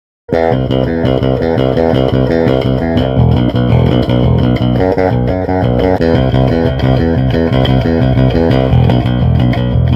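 Custom electric bass with humbucker and Precision pickups, playing a busy line of plucked notes through a bass amp cabinet. It starts suddenly a fraction of a second in.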